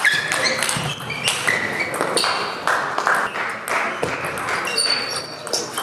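Table tennis rally: the plastic ball clicking off the paddles and the table in quick, uneven succession, with more ping-pong clicks from neighbouring tables.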